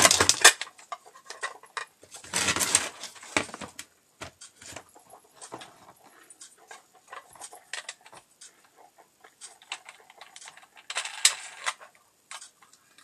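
Hand-handling of a metal bolt with a small disc threaded on it: scattered small metallic clicks and rattles, with denser clattering about two seconds in and again near the end.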